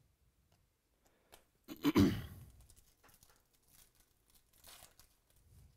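Foil wrapper of a Topps Chrome baseball card pack being torn open and crinkled by hand. The loudest tear comes about two seconds in, followed by softer crinkling.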